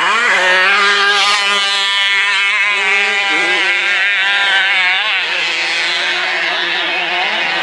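Several motocross bike engines running at once, their pitches rising and falling over one another as the riders throttle on and off.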